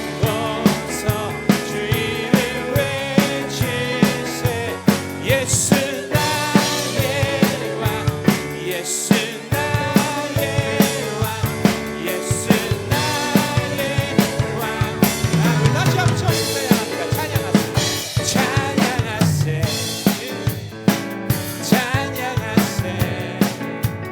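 Drum kit played live with a worship band: a steady beat of kick drum and snare hits under sustained band music.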